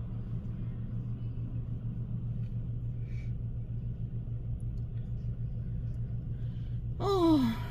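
Steady low rumble of a car idling, heard from inside the cabin while stopped. Near the end a woman's voice utters one short, falling sound.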